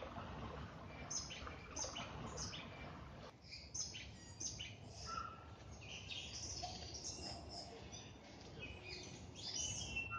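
Several forest birds calling and chirping, mostly quick high chirps with a few clearer whistled notes, over the rush of running water that cuts off about three seconds in.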